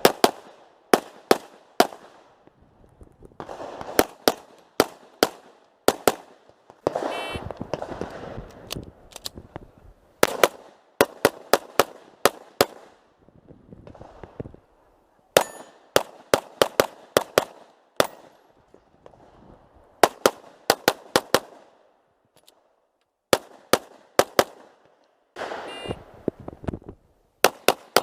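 Glock Open-division pistol in 9mm major firing rapid strings of shots: quick pairs and runs of up to about six, with short pauses between the strings.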